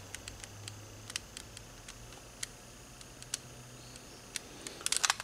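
Faint, scattered small clicks and ticks of hand tools and a wire being handled at a workbench, with a quick run of clicks near the end, over a faint low hum.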